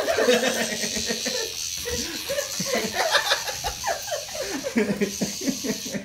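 People laughing hard, a quick run of laughs that grows denser about two seconds in.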